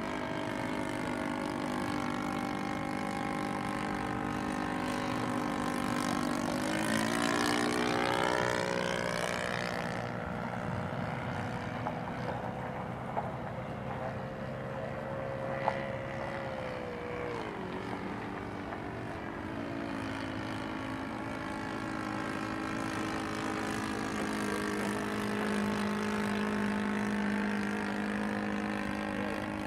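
RC model Fokker D.VIII's engine and propeller running in flight, a steady drone that drops in pitch as the plane passes about 7 seconds in and again around 17 seconds, then slowly climbs in pitch toward the end.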